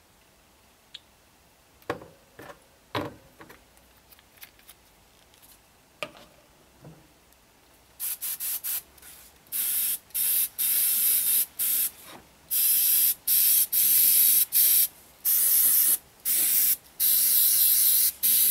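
A few light clicks and knocks of handling, then from about eight seconds in an airbrush spraying paint in repeated short bursts of a second or so, with brief pauses between them.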